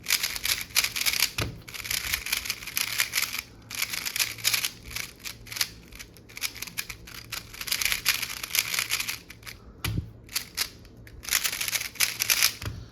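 MoYu Weilong V11 3x3 speedcube being turned rapidly, still unlubricated, its plastic layers clacking in fast flurries with a few short pauses.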